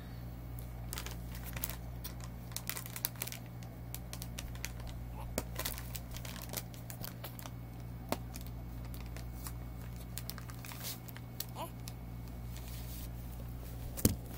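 Handling noise: scattered crinkles and clicks over a steady low hum, with one louder knock near the end.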